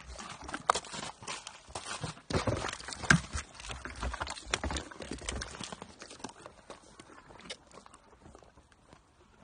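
Horses drinking from a ball waterer, nosing the floating ball down into the water: irregular knocks and clunks of the ball in the drinker's opening, mixed with wet drinking sounds. The knocking is busiest in the first six seconds and thins out after that.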